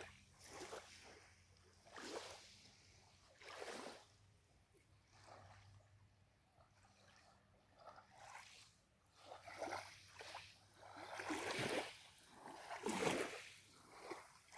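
Small waves lapping faintly at the lake's edge, in soft irregular swells that grow a little louder in the second half.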